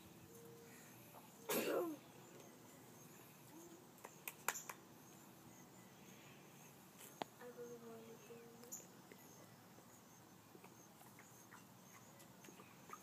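Bernese Mountain Dog puppy giving one short bark about a second and a half in, followed by a few faint clicks and scuffles as the puppies play.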